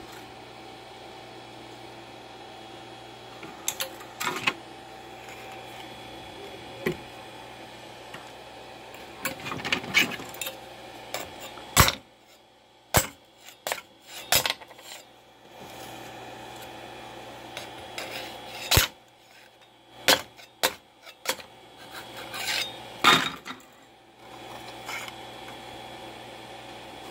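Freshly 3D-printed plastic parts being handled, knocked together and set down on a hard surface: scattered sharp clicks and knocks with a little scraping, over a steady machine hum.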